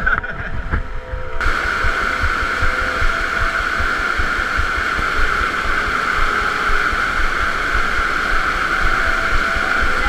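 Stream water rushing and splashing through a narrow cave passage, a loud steady rush that suddenly fills out about a second and a half in, with low uneven thumps underneath.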